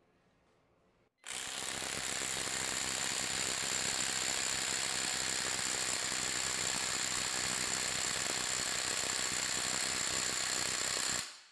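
Cobalt XTR impact driver converted to a half-inch-anvil impact wrench, hammering continuously in reverse against a torque-test rig. It starts about a second in, runs at a steady level for about ten seconds, and stops shortly before the end.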